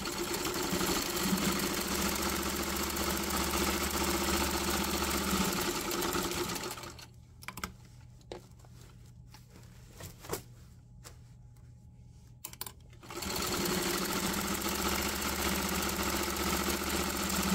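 Vintage sewing machine stitching a seam, running steadily for about seven seconds. It stops for about six seconds, with a few light clicks while the fabric is turned, then runs again to sew back over the seam.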